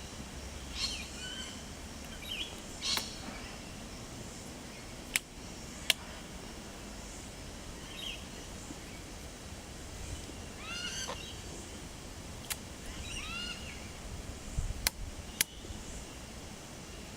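Wild birds giving short chirping calls over a steady outdoor background noise, with two quick runs of falling notes about ten and thirteen seconds in. Several sharp clicks sound at intervals.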